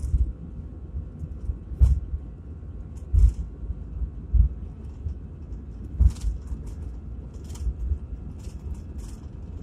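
Airliner cabin noise on the runway: a steady low rumble from the engines and the rolling wheels, with irregular thumps, about one every second or so, as the landing gear jolts over the runway surface.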